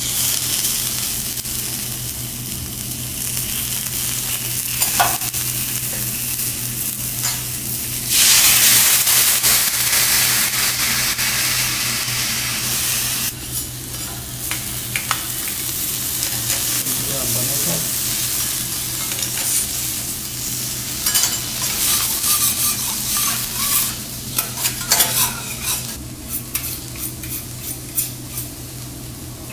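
Abalone sizzling and frying on a hot steel teppanyaki griddle, with a much louder burst of sizzling about eight seconds in that lasts several seconds. Sharp metal clicks and scrapes come thick and fast near the end.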